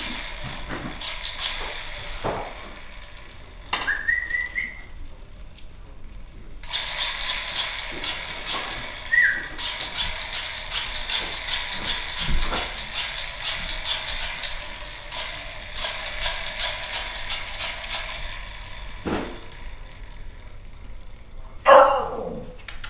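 Toy bubble machine running with a steady rattling whir. It stops about four seconds in, starts again about three seconds later, and stops again near the end. A few dull thumps and a short squeak fall in between, and a loud falling cry comes just before the end.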